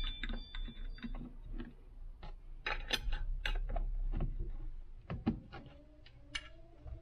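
Scattered light clicks and taps as a metal soft-plastic injection mold is handled and freshly molded plastic crawfish baits are taken out of it on a workbench.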